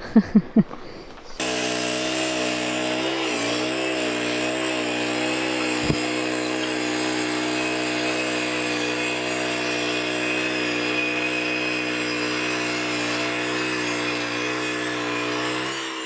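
Three short, loud sounds, then a Wood-Mizer LT15 Wide portable band sawmill running steadily as its band blade saws lengthwise through a large log; the engine note and blade hiss start suddenly about a second in, hold steady with a single click midway, and drop away at the very end.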